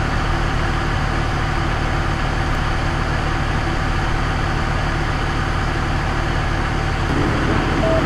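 Idling vehicle engine, a steady low rumble.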